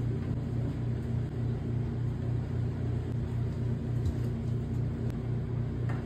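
Steady low rumbling hum with an even pulse, about three beats a second, with a couple of faint clicks about four and five seconds in.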